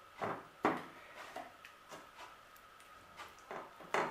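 A teaspoon spreading mayonnaise over diced cooked chicken breast: a handful of soft, irregular clicks and scrapes.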